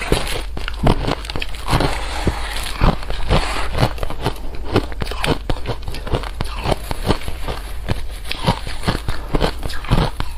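Close-miked crunching of crisp, crumbly food: a dense, irregular run of sharp cracks and crunches with no letup.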